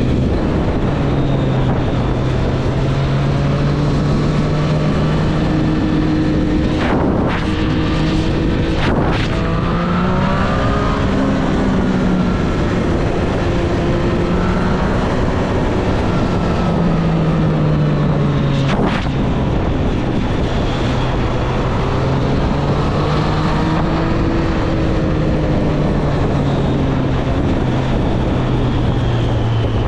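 Triumph Street Triple 765 RS inline three-cylinder engine pulling along on the road, its note rising and falling gently with the throttle, under steady wind rush. There are a few brief sharp clicks, one about a quarter of the way in and one near two-thirds.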